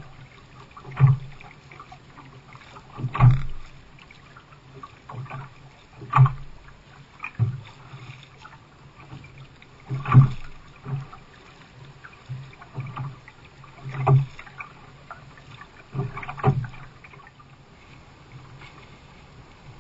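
Double-bladed paddle strokes on sea water from a canoe: each blade dips in with a short splash and a dull thud, about every two to three seconds, stopping near the end.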